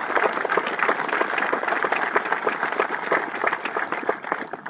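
Audience applauding: many people clapping together, thinning out and fading near the end.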